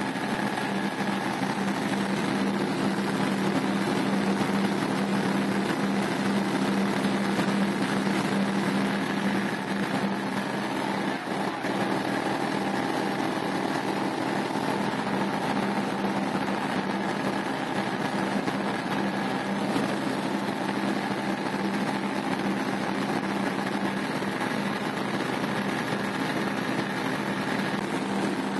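Cessna light aircraft's engine and propeller droning steadily in the cabin in cruise flight, a constant hum with a strong low tone.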